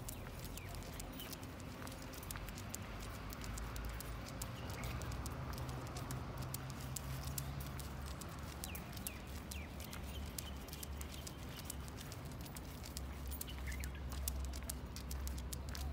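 German shepherd's claws clicking irregularly on paving tiles as it walks, over a low steady hum.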